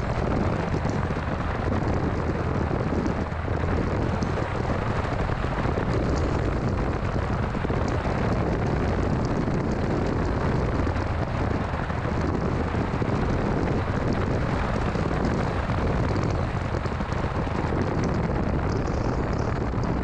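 Steady rush of road and wind noise from a 2006 Mini Cooper S on the move, heavy in the low end, with no clear engine note standing out.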